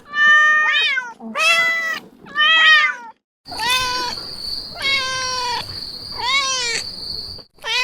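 Domestic cats meowing loudly, one drawn-out meow after another, about one a second. A short break about three seconds in leads to a different cat, whose meows sit over a steady high-pitched tone.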